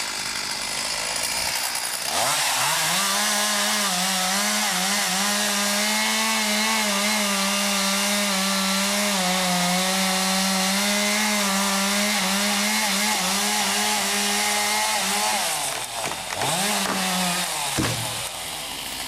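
Two-stroke chainsaw revving up about two seconds in and running at high throttle under load, cutting into wood for roughly thirteen seconds. It then eases off, revs briefly once more and drops back near the end.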